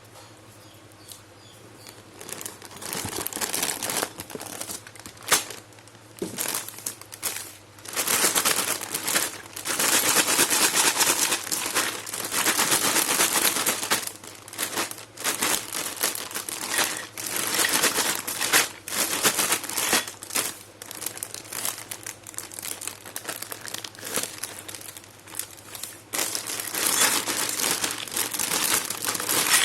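Packaging crinkling and rustling as a small toy kitchen set is unpacked, in uneven bursts with scattered sharp clicks, starting after about two seconds of near quiet.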